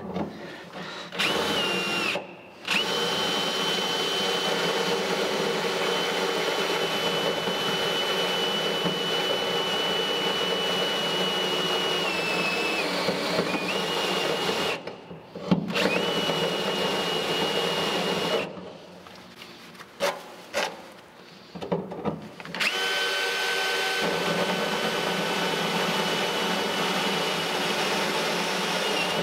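Electric drill turning a spot weld cutter bit into a steel car body panel, cutting out the spot welds. It runs in long steady stretches with a high whine that dips in pitch under load. There is a brief stop about halfway, then a longer pause broken by short bursts before the drill runs steadily again.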